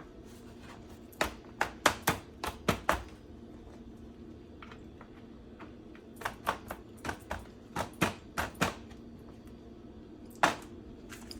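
Parts of a pull-out under-sink organizer being handled and fitted together: quick runs of sharp clicks and light knocks in two bursts, then one louder knock near the end.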